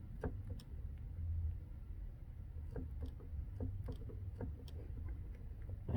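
Faint, scattered clicks and light knocks over a low rumble, from a 1937 MG TA's door being handled and wiggled on its hinges, which have some play.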